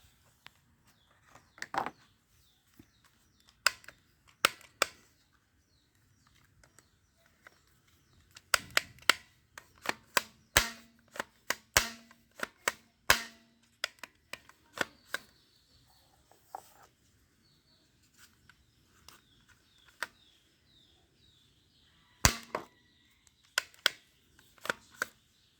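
Toy guns firing: sharp single shots and clicks, scattered at first, then a quick run of shots through the middle and another short cluster near the end.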